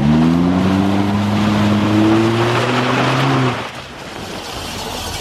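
Car engine pulling under acceleration, its pitch rising slowly, over a hiss of tyres on wet road and rain. About three and a half seconds in, it eases off and the sound falls to a quieter road hum.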